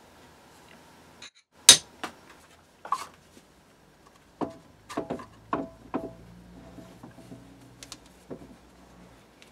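Sharp metallic knocks and clinks of a four-jaw independent lathe chuck being handled and fitted onto a Myford ML7 lathe's spindle. The loudest knock comes about two seconds in, and a run of ringing clinks follows around the middle.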